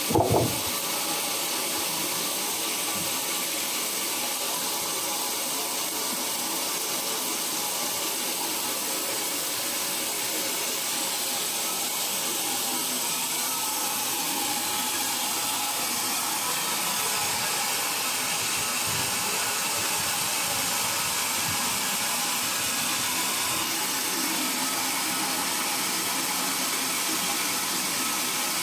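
Steady hissing machine noise that holds level throughout, with a brief louder knock just after the start.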